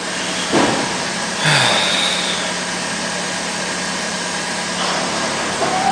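Car engine idling steadily, with a brief high squeal about a second and a half in.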